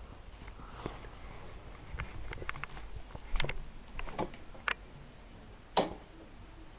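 A few scattered sharp clicks and soft rustling from things being handled, spaced irregularly through the middle of the stretch.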